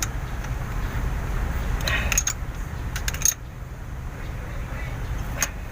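Hand tools clinking on the metal rocker arm of an Isuzu 12PE engine while its valve clearance is adjusted: short metallic clicks at about two seconds, around three seconds and again near the end, over a steady low rumble.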